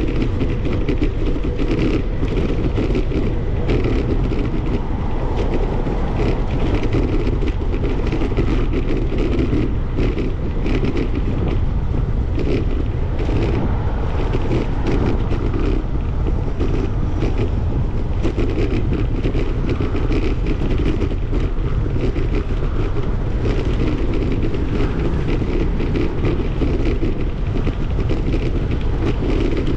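Wind buffeting the microphone of a camera on a moving bicycle: a steady low rumble that never lets up.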